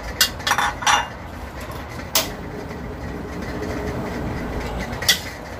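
Cookware being handled, knocking and clattering: a quick cluster of knocks in the first second, a single knock about two seconds in and another near the end, over a steady low background noise.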